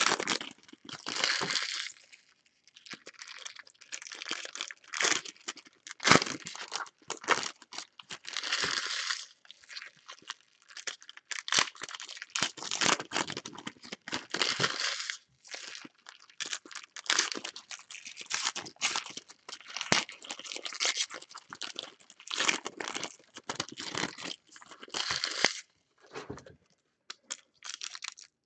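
Foil trading-card pack wrappers being torn open and crumpled by hand: irregular bursts of crinkling and tearing, easing off briefly near the end.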